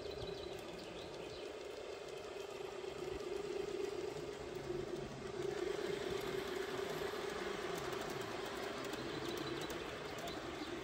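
A G-gauge model steam-outline locomotive and its coaches running along garden railway track. It makes a steady whine over a faint rumble of wheels on the rails, a little louder from about halfway through.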